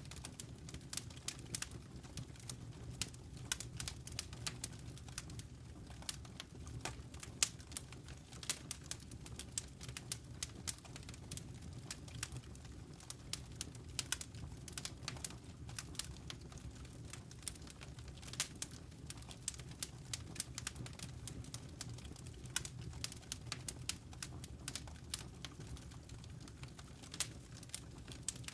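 Wood fire crackling: irregular sharp pops and snaps, several a second, over a low steady rumble of the burning flames.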